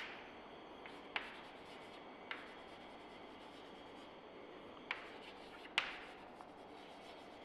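Chalk writing on a chalkboard: a faint scratching, broken by about five sharp taps as the chalk strikes the board.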